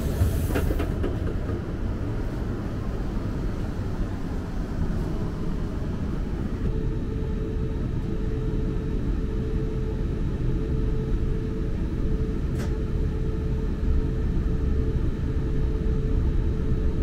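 Low rumble inside an electric passenger train carriage as it pulls away from the platform. A steady electric whine comes in about six seconds in, and there is a single sharp click later on.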